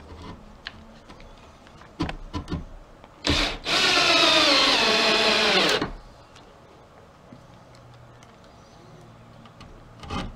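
Power drill working into wood: a short trigger pull, then about two seconds of the motor running under load, its pitch falling as it bites, after a few light knocks of handling.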